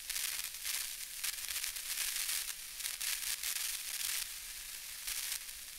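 Glitch-style static sound effect: a high hiss that surges and drops back in irregular bursts.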